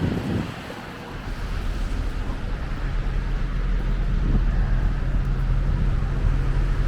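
City street noise: a low, steady traffic rumble with wind on the microphone, growing louder from about a second in.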